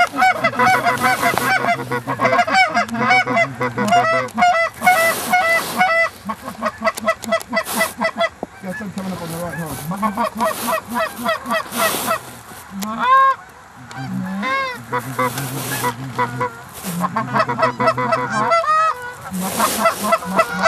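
A flock of geese honking and clucking, many short calls overlapping, with a couple of brief lulls.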